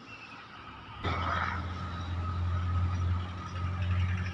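A motor vehicle's engine running with a steady low hum that starts abruptly about a second in.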